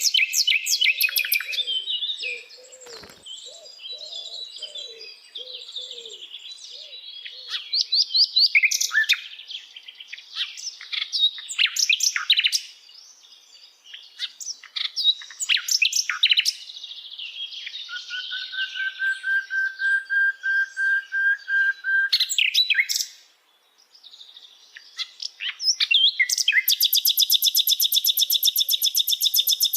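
Sikatan londo flycatcher singing a varied, rapid song of chirps, sweeps and whistles, with a long steady whistled note past the middle. A fast, even trill sets in near the end.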